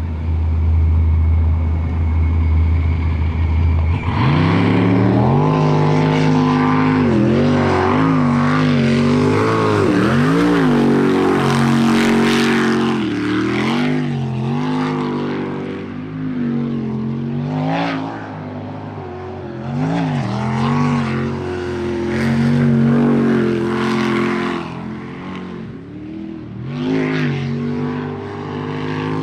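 A low steady rumble, then about four seconds in a sprint boat's engine opens up at full throttle for its timed run. The engine note climbs and drops over and over as the driver comes on and off the throttle through the turns of the course.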